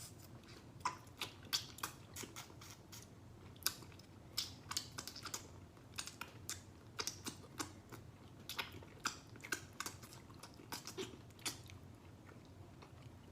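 Close-up chewing of a Sonho de Valsa chocolate bonbon with a thin wafer layer inside: irregular small crisp crunches and clicks, a few a second.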